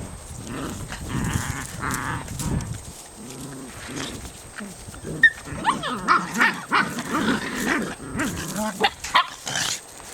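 Norrbottenspets puppies play-wrestling, giving small growls and grunts and short high yips and whines. The sounds are irregular and get busier in the second half.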